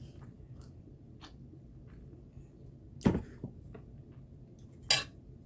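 Mealtime sounds of someone eating, mostly quiet, with two short sharp noises, one about three seconds in and one near the end.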